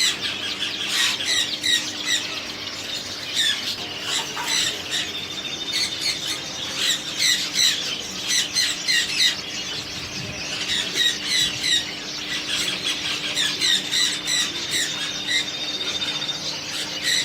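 Many small caged birds chirping and squawking together, a dense chorus of short, high, overlapping calls.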